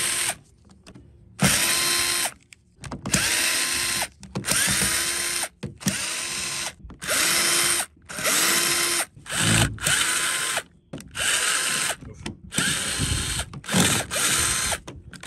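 A cordless drill/driver with a Phillips bit is backing screws out of a vacuum's plastic base housing. It runs in about a dozen short bursts, each with a whine that rises as the motor spins up.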